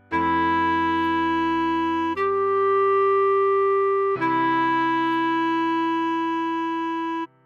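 Clarinet tone playing a slow melody line: three long held notes, F# stepping up to A and back down to F#, over a soft low chordal accompaniment. The last note cuts off just before the end.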